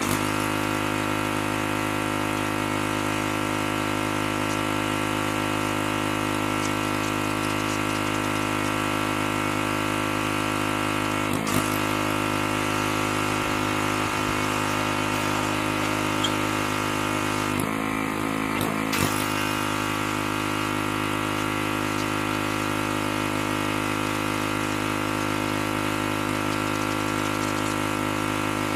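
Pressure washer running steadily, a constant engine-and-pump drone with spray hiss. It is broken by brief handling noises about a third of the way in and again about two-thirds in.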